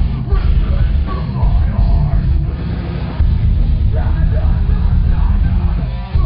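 A heavy rock band playing live, with dense, heavy bass and drums. The sound briefly drops away just before the end, then comes straight back in.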